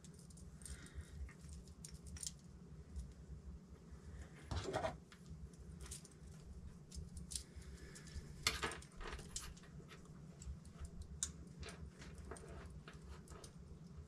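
Quiet clicks and light metallic rattles of small hand tools and cable being handled on a workbench while a wire is trimmed, with a few louder clicks about five and nine seconds in, over a faint steady hum.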